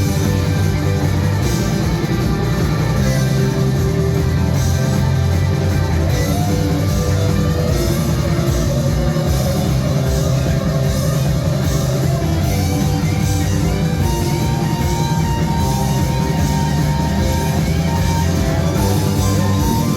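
Loud rock music with electric guitar and drums.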